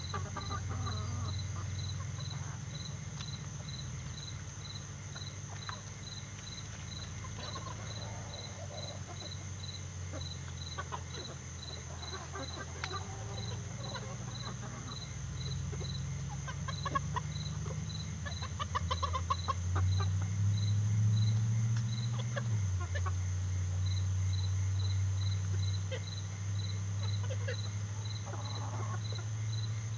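A small flock of chickens clucking softly and calling here and there while foraging, over an insect chirping steadily about two or three times a second and a steady low hum.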